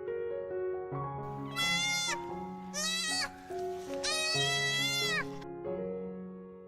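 An animal calls three times, each call a wavering cry with many overtones and the last the longest, over soft background piano music.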